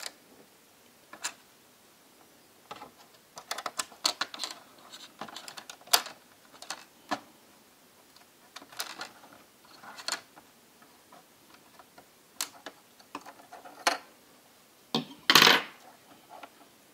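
Irregular small clicks, taps and scrapes of plastic and metal laptop parts being handled with a small tool and fingers while cables are freed and the speaker and metal bracket are worked loose, with a louder half-second scrape near the end.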